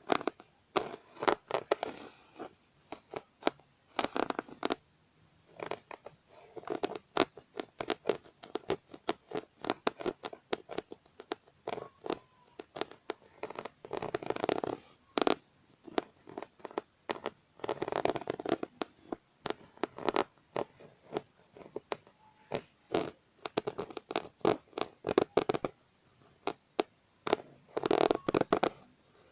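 Scratching on the raised lettering of a computer keyboard's keys, in repeated strokes about a second long, mixed with many sharp clicks.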